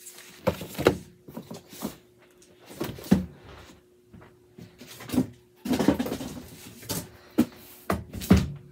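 Cardboard and boxed toy packaging being handled: a string of irregular knocks, thumps and scrapes as a boxed figure is set down and a cardboard shipping box is rummaged through.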